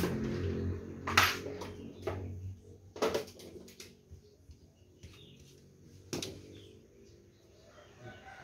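Three sharp knocks and clatters of hand tools and parts being handled on a concrete floor, spaced a couple of seconds apart, with quiet between; a low hum fades out in the first couple of seconds.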